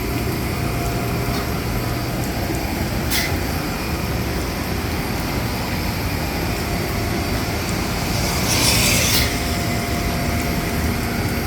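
Nitrogen-driven hydraulic service cart pumping fluid up to the aircraft, a steady mechanical drone. A short hiss comes about three seconds in, and a longer, louder hiss from about eight to nine seconds in.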